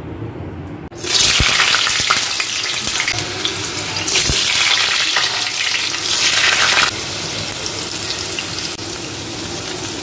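Potato wedges sizzling as they fry in hot oil in a stainless-steel kadai. The sizzle starts suddenly about a second in and swells twice as more pieces go into the oil.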